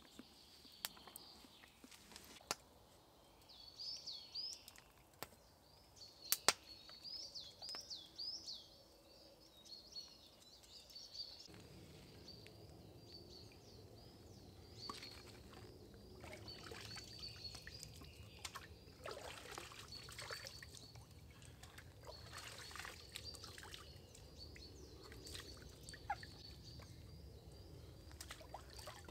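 Small birds chirping in the woods, with a few sharp clicks early on. About a third of the way in, a trickling stream comes in, splashing several times as camp utensils are rinsed in the water.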